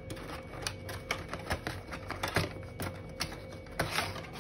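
Cardboard product box being opened by hand: irregular light clicks and taps from the flaps and packaging, with a longer scraping rustle about four seconds in as the contents slide out.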